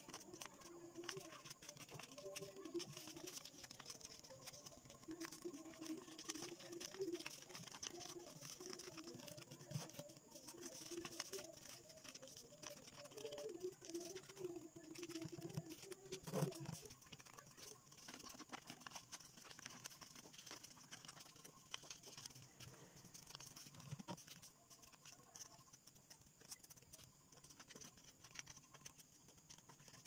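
White paper being folded and creased by hand: faint rustling, crinkling and small scratchy clicks of paper, with one louder knock about halfway through.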